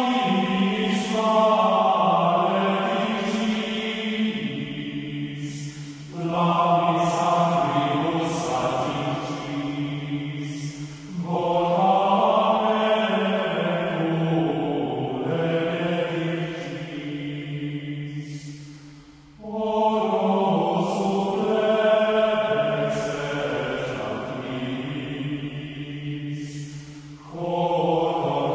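Choir singing plainchant in long, slow phrases, each several seconds long, with a short break before each new phrase.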